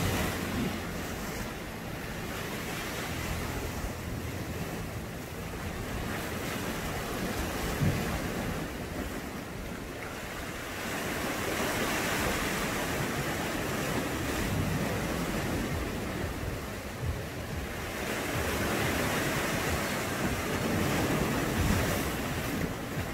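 Sea waves washing and breaking over rocks, swelling louder twice, in the middle and near the end, with wind buffeting the microphone.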